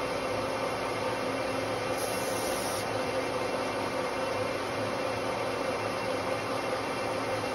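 Metal lathe running steadily while turning a large electric motor's copper commutator true: a constant whirring hiss with a steady mid-pitched hum, and a brief rise in high hiss about two seconds in.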